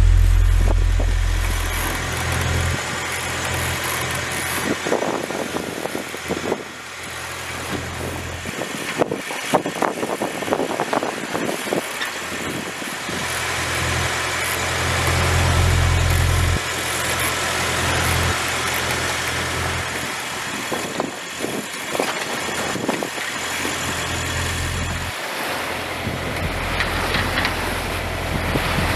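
Wind gusting across the microphone, with a deep rumble that comes and goes every few seconds, over a steady rush of sea water and spray on a sailboat under way.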